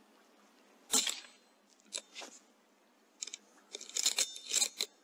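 Handling noise picked up by a rifle scope's built-in microphone: a single knock about a second in, then rustling of fabric and a quick run of clicks and scrapes near the end.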